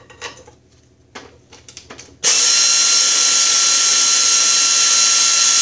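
Pneumatic air ratchet running steadily for about four seconds, starting about two seconds in, as it spins a bolt out of the mower frame: a loud air hiss with a steady whine. A few light metal clicks from handling the tool come before it.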